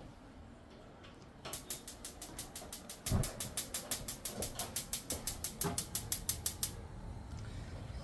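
Gas stove burner's electric igniter clicking rapidly and evenly, about six clicks a second, for about five seconds before stopping as the burner is lit. A low knock about three seconds in as a pot is set on the burner grate.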